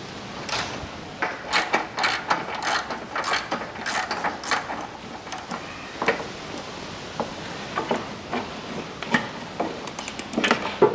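Ratchet wrench clicking in short irregular runs as it turns a bolt through a socket on a universal joint, undoing the fastening of the windscreen washer reservoir.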